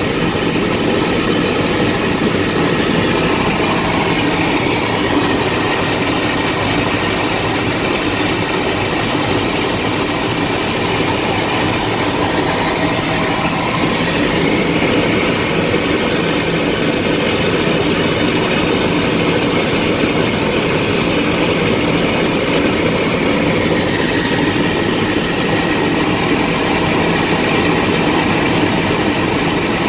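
Bell 206 helicopter in cruise flight, heard from inside the cabin: a steady, unbroken din of its turbine engine and rotor.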